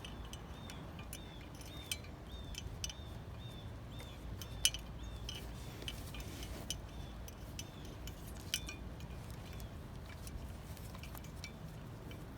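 Light clicks and clinks of wiring harness connectors and small parts being handled while wires are connected, with a few sharper clicks. A faint high chirp repeats about two or three times a second underneath, fading out after about eight seconds.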